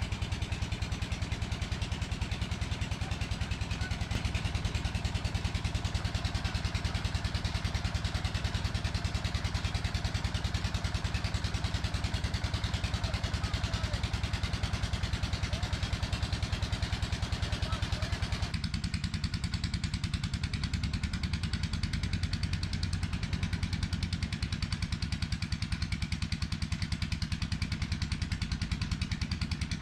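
An engine running steadily at an even, low speed with a fast regular beat. About two-thirds through, the higher background sounds cut away abruptly while the engine sound continues.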